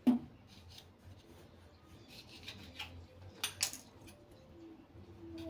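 Kitchen knife cutting around a plate through a thin pastry sheet and scraping on a granite countertop in a series of short strokes, the loudest about three and a half seconds in. A sharp knock just at the start.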